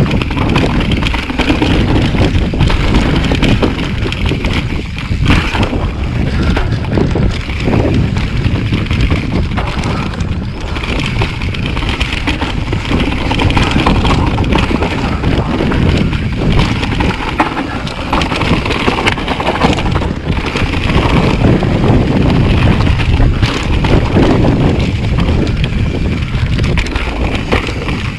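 Wind buffeting the bike-mounted camera's microphone, mixed with the steady rumble of mountain bike tyres rolling fast over a dirt trail.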